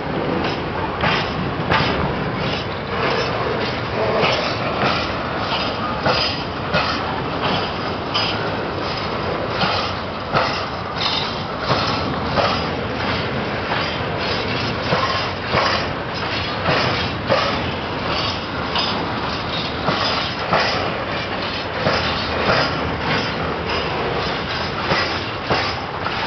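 Train of empty freight wagons rolling past at low speed, the wheels knocking over rail joints in a steady rhythm of about one knock a second over a continuous rumble and rattle of the running gear.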